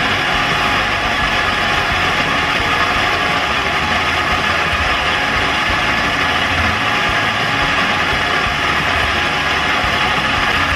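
Electric coffee grinder running steadily, grinding espresso beans into the portafilter held in its fork.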